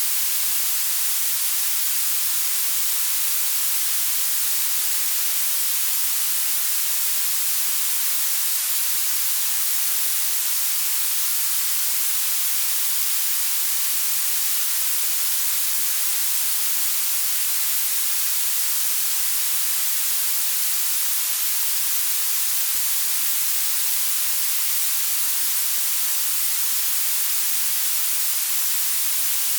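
Synthetic blue noise: a steady, unchanging hiss that gets stronger toward the treble, brightest in the very highest range and with almost no bass.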